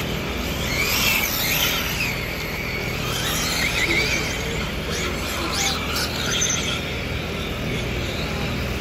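Electric RC race cars running laps, their brushless motors whining high and sliding up and down in pitch as they speed up and slow for the corners. A steady low outdoor rumble sits underneath.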